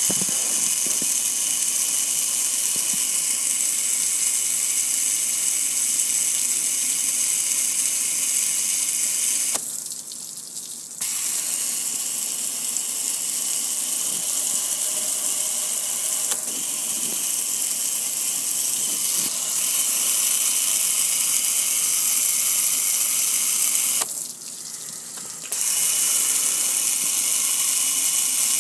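Water spraying from a hose onto the metal lid and control panel of a gas grill, a steady hiss and splatter. It stops twice for a second or so, once about a third of the way through and again near the end.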